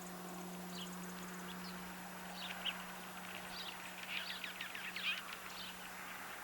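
Small songbirds at a winter feeder giving short, sharp chip calls, scattered and clustering about four to five seconds in, over a steady low hum.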